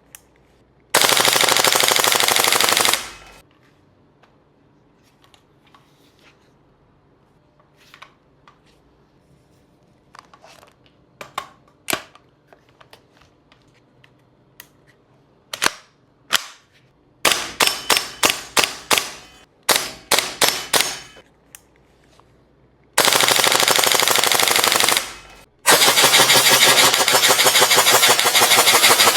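WELL Pro AK12 gas-blowback airsoft rifle firing BBs. It fires a long full-auto burst, then scattered single clicks, then several short rapid bursts, and ends with two long full-auto bursts.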